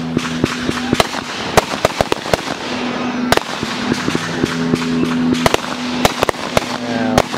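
Fireworks going off: a rapid, irregular run of sharp bangs and crackles, many each second, over a steady low two-note hum.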